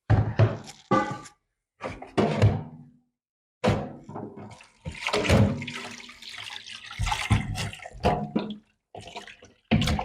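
Hot water poured and splashing over dried fish in a bowl, with knocks from handling the bowl and fish and a brief ringing clink about a second in. The sound comes in several separate stretches broken by sudden silences.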